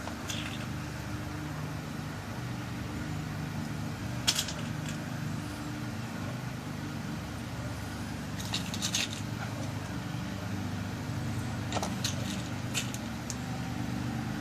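Small brass pin tumblers being loaded one by one into a lock cylinder plug for a new key, heard as a few sharp little metallic clicks: one about four seconds in, a cluster around nine seconds and several more near twelve seconds. A steady low hum runs underneath.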